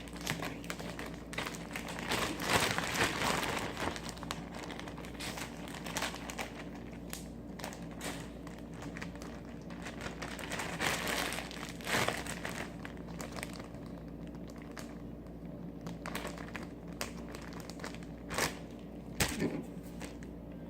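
Crinkling, crackling handling noises with many small clicks, busiest about two to four seconds in and again around eleven seconds, with a few sharp clicks near the end.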